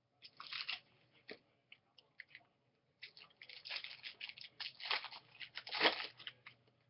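Trading cards and their packaging being handled: a run of crisp crinkling and rustling, sparse at first and busier from about halfway through.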